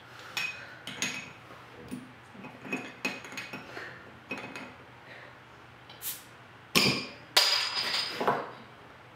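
Glass beer bottles clinking and knocking on a tabletop as a bottle cap is pried off with a bottle opener: a string of short, sharp clinks, with the loudest knocks near the end.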